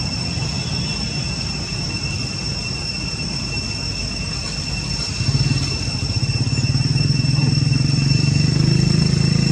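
A motor vehicle engine running as a low hum that grows louder from about halfway through, as if coming closer, over a steady high-pitched whine.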